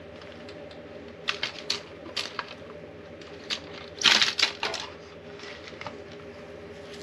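Plastic clicks and rattles of a car's fuel pump module being taken apart by hand, as the in-tank pump is worked loose from its plastic housing, with a louder scrape about four seconds in.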